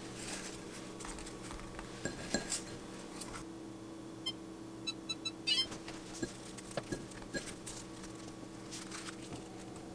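Soft scattered taps and a few light clinks as large marshmallows are set by hand into a metal baking pan of candied sweet potatoes, with a cluster of the clinks about five seconds in, over a low steady hum.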